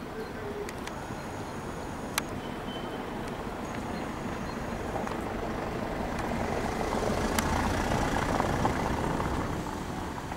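A motor vehicle passing by, its noise swelling to its loudest about eight seconds in and then fading.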